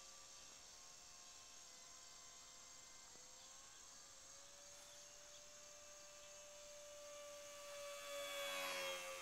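Electric motor and propeller of an E-flite Curtiss N9 radio-control model biplane whining faintly at a steady pitch in flight. The pitch rises slightly about three seconds in, and the sound grows louder near the end as the plane passes close.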